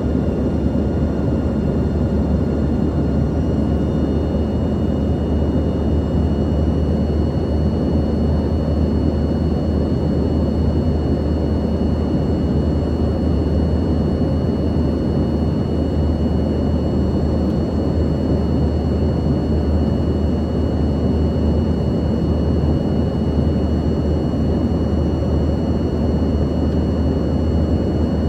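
Steady cabin noise of an Embraer ERJ-145 jet: a loud, even rumble with a low hum, and thin high steady whines from its rear-mounted Rolls-Royce AE 3007 turbofan engines.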